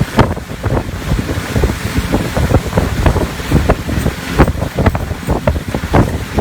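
Strong storm wind buffeting the microphone in uneven gusts, with frequent irregular crackles and knocks.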